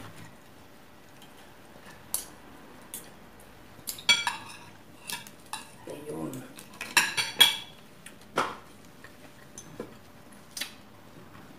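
Metal spoon and fork clinking and scraping against ceramic plates while food is cut and scooped: irregular sharp clinks, a few of them ringing briefly, with a small flurry about four seconds in and another about seven seconds in.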